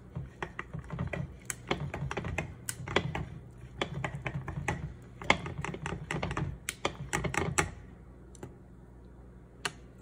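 Plastic chopsticks whisking crepe batter in a glass bowl, with rapid, irregular clicking and tapping as they beat against the glass. The whisking stops about three-quarters of the way through, and there is one more tap near the end.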